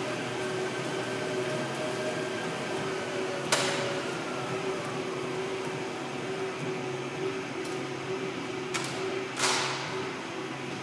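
Precor motorised treadmill running with a steady mechanical hum. About three and a half seconds in there is a sharp knock, after which one of its tones stops; two more sharp knocks come near the end.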